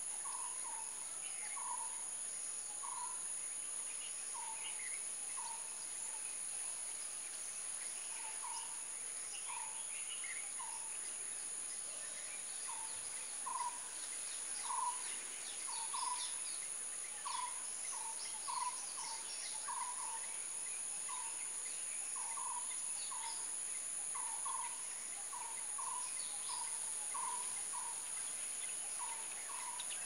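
A steady, high-pitched insect drone from cicadas or crickets in garden trees, under a bird repeating one short call about once a second, with other birds chirping now and then.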